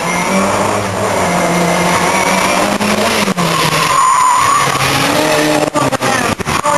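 Car engine revving hard and easing off as the car is driven through tight manoeuvres, with the tyres squealing about four seconds in.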